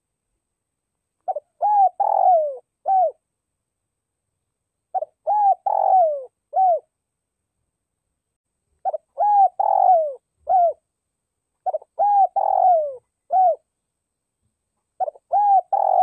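Spotted dove cooing: five phrases about every three to four seconds, each a couple of short coos, a longer falling note and a final short coo. It is the male's calling song, used as a decoy to stir other males.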